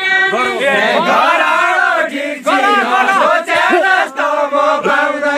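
A group of men singing a Nepali deuda folk song together in a dance ring, many loud voices overlapping in a chant-like chorus.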